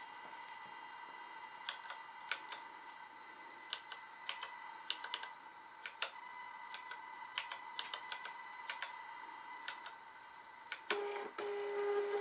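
Keys of a small price-label keypad clicking in an irregular run as numbers are typed in, over a faint steady hum. About eleven seconds in, a Zebra LP 2824 Plus thermal label printer starts feeding and printing a label with a steady motor whine.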